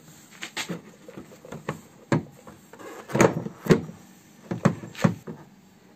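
Plastic rear tail-light housing of a Nissan Tiida knocking and clicking against the car body as it is pushed back into place, its studs going into their holes and its clip catching. A string of sharp knocks, the loudest about three to five seconds in.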